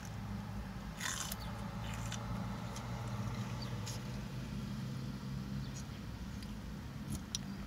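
Close-up chewing and mouth sounds of someone eating salad, with a few sharp clicks of the fork and plastic container, the loudest about a second in, over a steady low hum.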